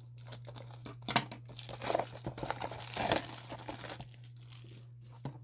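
Foil wrapper on a cardboard mystery-mini blind box crinkling and tearing as it is cut open with scissors and pulled off, in irregular bursts with a few sharp crackles, busiest in the middle.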